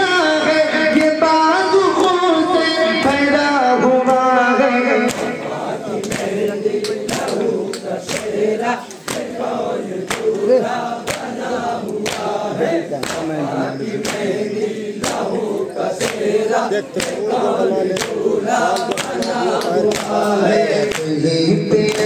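A nauha lament sung by a lead voice for the first few seconds, then a crowd of men chanting it together while beating their chests in matam, the open-hand slaps landing in a steady rhythm about twice a second.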